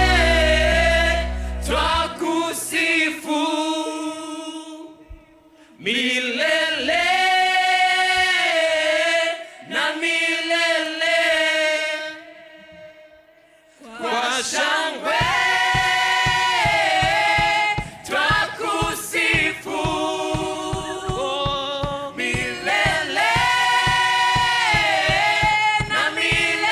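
A worship team of several voices singing a Swahili praise song, with two short breaks between sung phrases. A steady beat joins the singing about halfway through.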